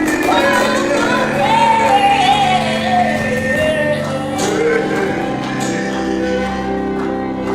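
Worship song: a voice singing a wavering melody over steady held instrumental chords. The singing fades in the last couple of seconds while the chords go on.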